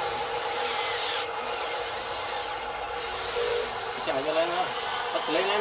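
Radio-controlled hydraulic excavator running, a steady motor whine with hiss. A person's voice comes in briefly about four seconds in.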